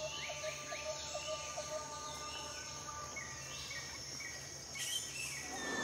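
Faint forest ambience: short bird chirps repeating several times a second over a steady insect hum, with higher falling calls recurring through it.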